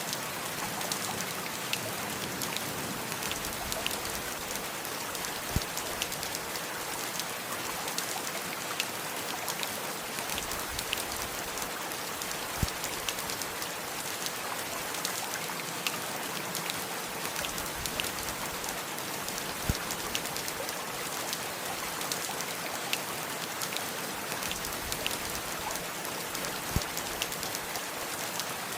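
Steady rain falling, with many scattered sharp drips and an occasional heavier drop landing every several seconds.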